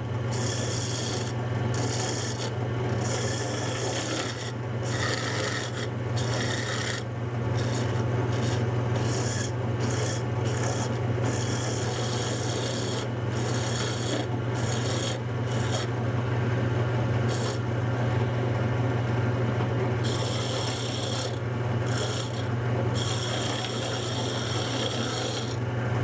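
Wood lathe running with a steady motor hum while wood scrapes against the spinning spindle blank in repeated passes, taking material off to thin it.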